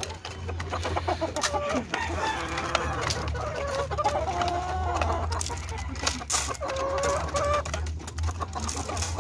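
Caged roosters and hens clucking, with drawn-out crowing calls, each held about a second, a little before the middle and again later on. Sharp clicks and taps sound over the calls.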